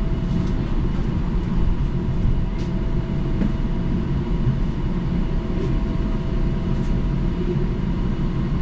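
Cabin sound of a standing Bombardier Flexity Outlook streetcar: a steady low rumble with a constant hum from its onboard equipment, and a few faint clicks.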